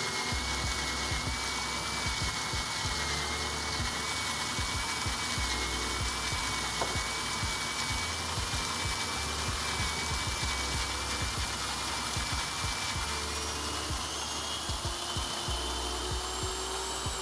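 Goat Story ARCO coffee grinder on its electric motor base, grinding about 18 g of coffee beans fine for a double-shot espresso: a steady motor whine with the grinding of the burrs, rising a little in pitch near the end.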